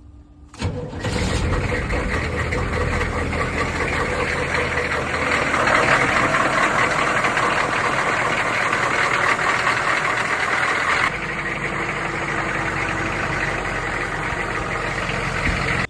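Humvee V8 diesel engine cold-started, catching about half a second in and settling into a steady idle with its newly fitted drive belt running. The sound steps slightly quieter about eleven seconds in.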